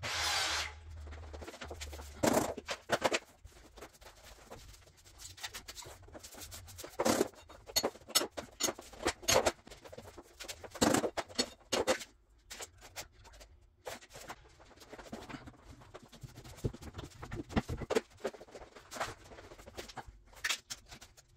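Work on a vinyl plank floor: irregular knocks and taps of planks and tools being handled and set down, with scuffing movement between them and a short rustling hiss at the very start.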